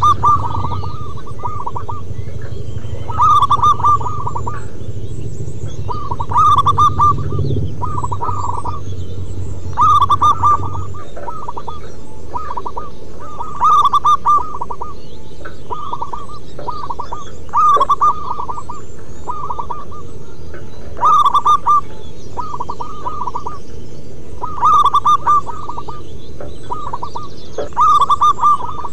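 Zebra dove (perkutut) cooing: a phrase of several quick, clipped coos repeated about every three and a half seconds, with softer coos in between. A low hum underneath stops about a third of the way in.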